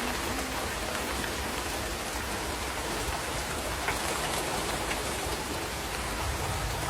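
Heavy downpour, a steady even rush of rain with a few sharper drop hits, one about four seconds in.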